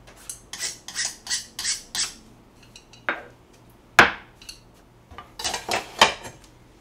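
Chopsticks clicking against a small bowl as stir-fried radish namul is arranged in it, about six quick clicks. About four seconds in the bowl is set down on a plastic cutting board with one loud sharp knock, then a few more clatters of utensils handled on the counter near the end.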